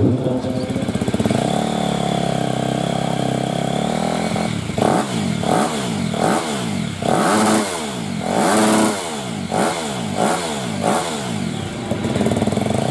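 A motocross bike engine running steadily at first, then revved up and down over and over, about once a second, with a couple of longer held revs near the middle.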